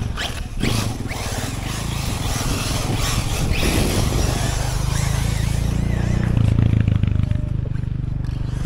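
Electric radio-controlled car driving on asphalt: its motor whine rises as it accelerates at the start, then tyre and road noise with a steady low rumble.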